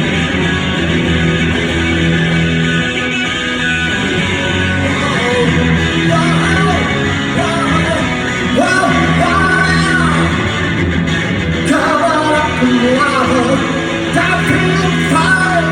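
Live rock band playing loud electric-guitar-driven music, with a wavering melodic line, sung or played, over it from about five seconds in.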